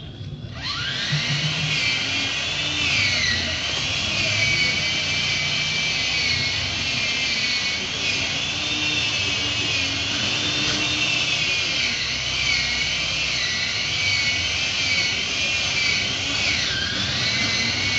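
Chainsaw revving up with a rising whine about half a second in, then running at high revs with its pitch wavering and dipping twice as it cuts into the tree trunk.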